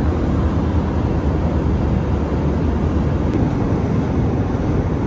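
Steady, deep cabin noise of an Airbus A321-211 in flight, from its engines and the airflow over the fuselage.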